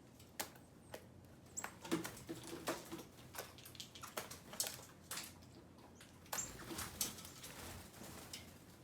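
Small birds feeding: irregular light taps and clicks, with a couple of short high chirps.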